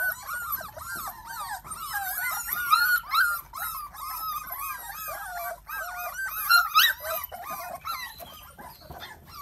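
A litter of Bangkaew puppies whining and yelping together in many short, overlapping high calls, with one rising squeal about seven seconds in. The puppies are crying to be let out of their pen.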